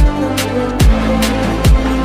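Background music with a steady beat: a deep kick drum that drops in pitch, struck three times a little more than a second apart, with lighter percussion between the hits over held notes.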